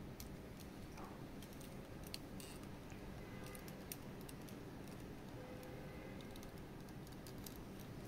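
Faint scattered clicks and light taps of small hard parts being handled, over a steady low room hum.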